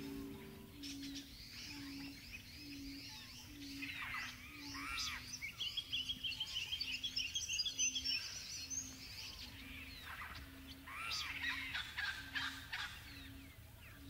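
Birds chirping and calling, many short overlapping whistled notes sliding up and down, over a low note that pulses about twice a second. A held music chord ends just under a second in.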